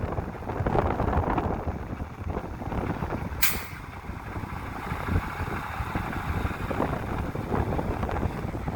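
Wind buffeting the microphone over a low, uneven rumble, with one short, sharp hiss about three and a half seconds in.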